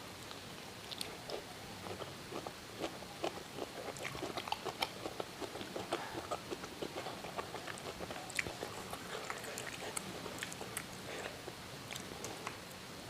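Close-up chewing and biting of siomay and bakso tahu (steamed fish dumplings and stuffed tofu), a rapid irregular run of small mouth clicks that starts about a second in.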